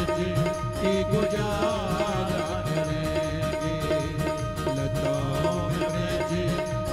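Instrumental interlude of a live bhajan: harmonium and electronic keyboard play an ornamented melody with wavering pitch over a steady drone and a continuous hand-drum rhythm.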